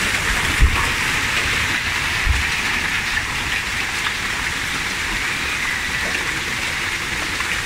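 Heavy hail coming down: a steady, dense hiss of hailstones pelting the lawn and street. Two dull low thumps come in the first few seconds.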